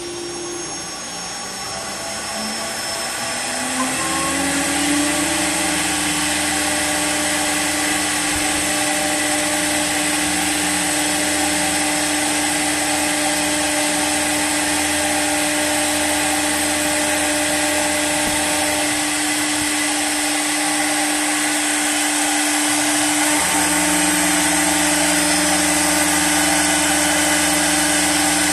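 CNC wood lathe spindle spinning up with a rising whine over the first few seconds, then running steadily while it turns a pine blank into a leg: a steady machine hum over a hiss. The sound shifts slightly about 23 seconds in.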